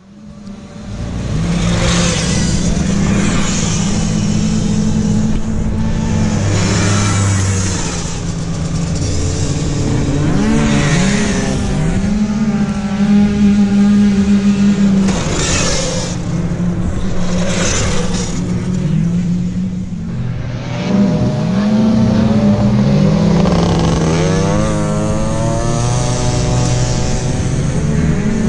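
Several tuned 50cc two-stroke off-road scooters racing around a dirt motocross track. Their engines rev up and down, and riders pass close every few seconds. The sound comes in over the first second.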